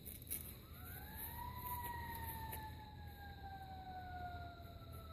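A faint siren wailing: one slow rise in pitch, then a long, gradual fall.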